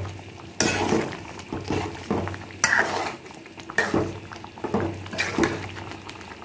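A spatula stirs and scrapes through thick, bubbling okra gravy in a metal pan, a few strokes about a second apart, mixing in the rock salt just added.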